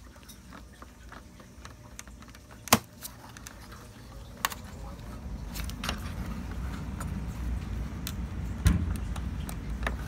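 Hand-handling of a car's plastic taillight assembly: scattered sharp plastic clicks and knocks, the loudest about three seconds in, over a low rumbling handling noise that grows from about four seconds in.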